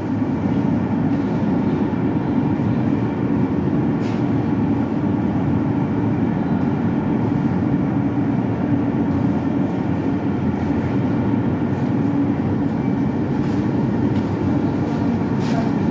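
Large generator set running steadily, a loud, even low drone.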